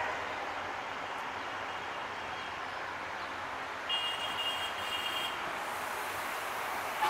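Steady hiss and rumble of vehicle noise. From about four seconds in, a high steady tone sounds for about a second and a half.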